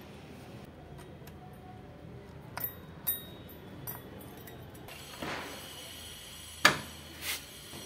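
Metal tools clinking against a scooter's variator pulley: a few light clicks, a short scrape, then one sharp metallic clank about two-thirds of the way in as the pulley holder is set in place, and a softer clink after it.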